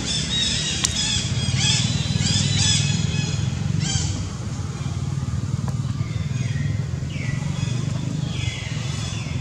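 Newborn macaque infant crying: a quick run of short, high squeals in the first few seconds, then a few longer cries that fall in pitch near the end, over a steady low drone.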